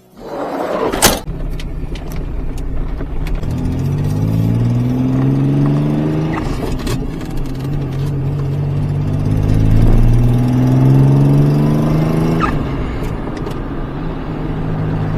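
1987 Pontiac Fiero GT's 2.8-litre V6 pulling away under acceleration, a sharp knock about a second in, then the engine pitch climbs, drops at a shift about six seconds in, climbs again and drops at another shift near the end. The owner suspects another exhaust leak on this engine.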